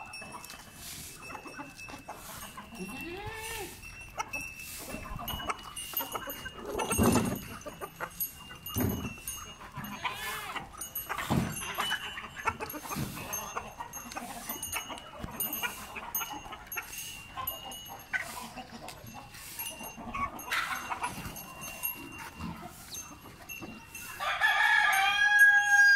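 Farmyard animal sounds: goats bleating now and then among clucking chickens, with a louder, longer call near the end that sounds like a rooster crowing.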